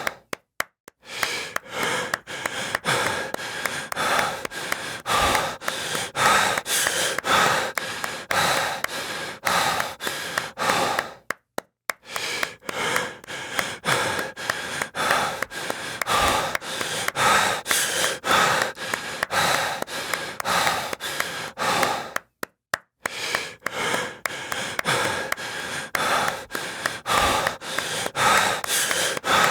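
A person breathing heavily, with sharp hand claps at about two to three a second over the breaths. The pattern repeats, with a brief silent break about every eleven seconds.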